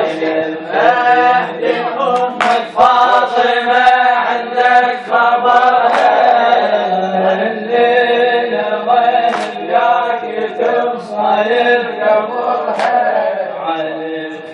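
A radood chanting an Arabic latmiyya (Shia mourning elegy), unaccompanied, in long, held, wavering phrases. A few sharp knocks or claps cut in here and there.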